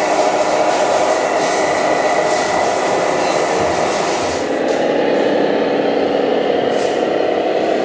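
Radio-controlled model trucks running: a steady mechanical drone with a high whine over it, changing in tone about five seconds in.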